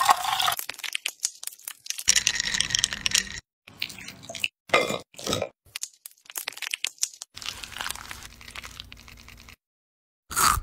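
Short crisp crunches and clicks from raw bitter melon slices being handled and cut, in separate snippets broken by brief silences.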